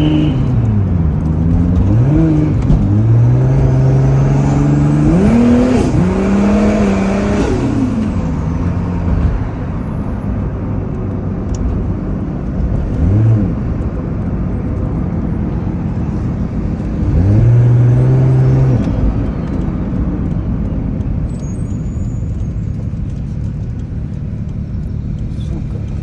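Single-turbo Mk4 Toyota Supra's 2JZ-GTE straight-six revving in repeated bursts, some quick blips and some held for a second or two, dropping back between them. A faint high turbo whistle rises and falls with the biggest revs.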